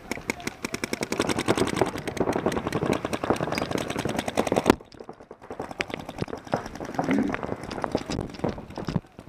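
Paintball markers firing rapid strings of shots, many pops a second, that cut off abruptly about halfway through. After that only scattered single shots are heard.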